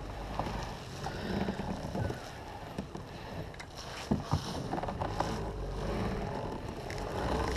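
Steady wash of water and hull noise from a plastic pedal kayak under way, with a few light knocks about four seconds in, as the angler pedals and winds the baitcasting reel.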